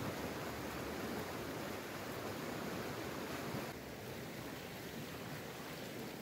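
Fast-flowing river rushing steadily. About four seconds in it cuts to a quieter sound of water pouring from a bucket onto a heap of sand.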